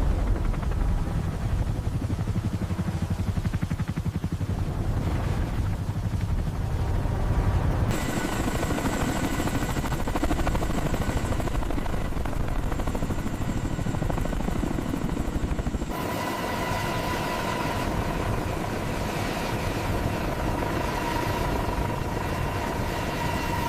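Helicopter running, with a fast low rotor beat and a steady high turbine whine, in three sections that cut abruptly from one to the next about eight seconds apart.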